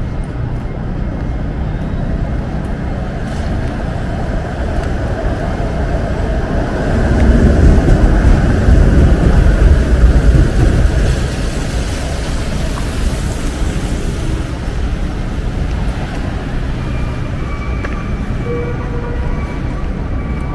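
City street traffic: a steady rumble of passing vehicles, with one louder vehicle going by from about seven to eleven seconds in.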